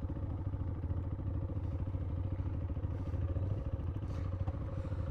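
Zontes T2 350 motorcycle engine idling steadily, with an even, rapid pulse.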